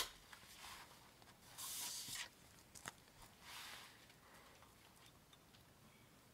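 Faint handling sounds of a clear plastic envelope being slid onto a six-ring binder's metal rings: two short, soft rustles with a light click between them, about three seconds in.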